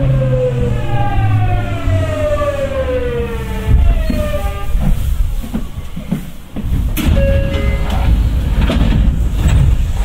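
Tokyu 9000 series electric train's Hitachi early-type GTO-VVVF inverter whining in several tones that glide steadily down in pitch as the train slows. The whine stops about halfway through, leaving wheel-on-rail rumble with a few sharp knocks and a brief tone.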